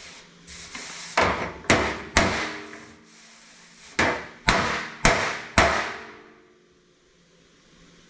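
A hammer striking the steel panel of a 1959 Chevrolet step-side truck bed to work out a dent: seven sharp blows, three in quick succession, then after a short pause four more, each ringing briefly.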